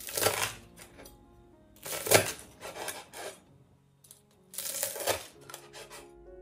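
Knife slicing down through a crisp batter-fried king oyster mushroom cutlet onto a wooden cutting board: three crunchy cuts, the second followed by smaller crackles.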